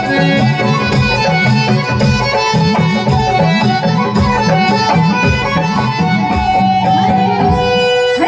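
Instrumental Garhwali folk music over a loudspeaker system: a steady, regular drum beat under a melody line and a bass line. The beat drops out near the end.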